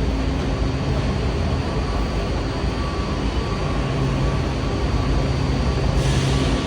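Washington Metro train running, a steady rumble with a low hum; a brighter hiss comes in about six seconds in.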